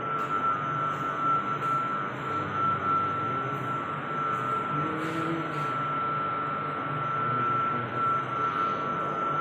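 Steady power-plant machinery noise: a constant high-pitched whine over an even hum.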